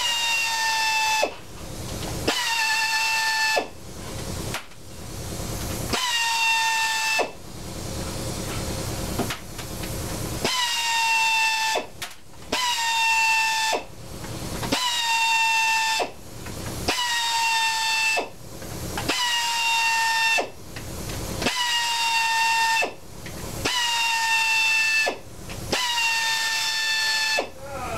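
Pneumatic air ratchet running in short bursts of one to two seconds, a dozen or so times, backing out the reed-assembly screws on an Evinrude/Johnson V6 outboard block. Each burst is a hissing whine that drops briefly in pitch as it starts, then holds steady.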